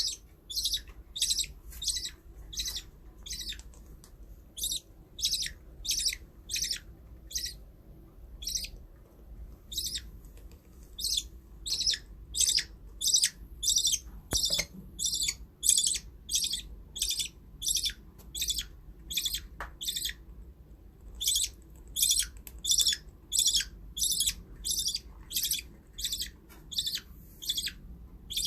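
A baby budgerigar calling over and over: short, high chirps about twice a second, with a few brief pauses.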